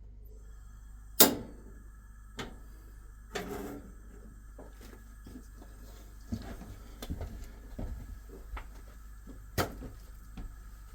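Scattered knocks and clunks of things being handled in a small room: one sharp knock about a second in, a short scrape a couple of seconds later, then a run of lighter knocks. A faint steady hum sets in about half a second in.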